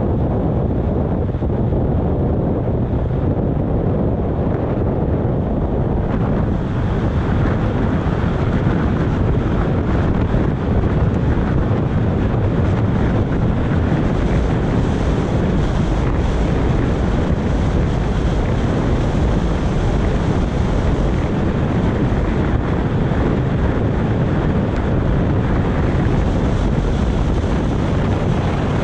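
Wind buffeting the microphone of a camera moving fast, a loud steady rush with no engine note or voices, taking on a little more hiss from about six seconds in.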